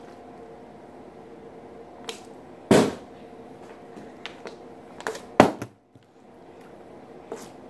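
Partly filled plastic water bottle knocking down onto a table as it is flipped: a few thuds, the loudest about two and a half seconds in and two more close together around five seconds in, over a faint steady hum.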